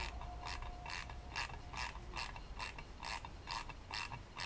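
Ratchet wrench clicking in an even rhythm, a little over two clicks a second, as it drives a cylinder stud fully into a Solex engine block by a nut and lock-nut.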